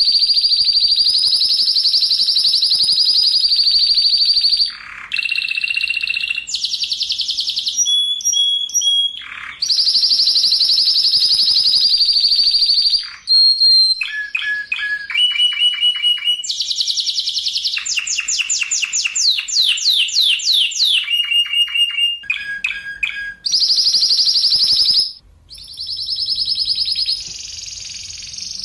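Spanish Timbrado canary singing a varied song: long, tight rolling trills held on one high pitch, alternating with runs of rapid repeated notes and quick falling sweeps, with short breaks between phrases.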